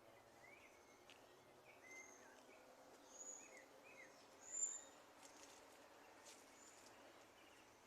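Small birds calling faintly: scattered short chirps and thin, high whistled notes over a faint background hiss, the loudest a high note a little past halfway.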